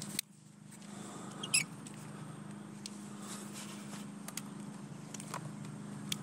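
Light clicks and knocks of hands working a drone's bottom battery free, with a short high squeak about one and a half seconds in, over a steady low hum.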